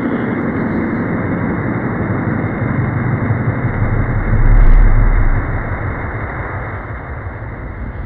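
A steady, muffled rumbling noise with no high end. It swells louder about halfway through, then eases off.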